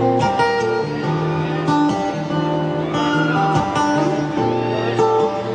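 Live guitar playing an instrumental passage of a blues ballad: sustained chords and single notes between sung verses.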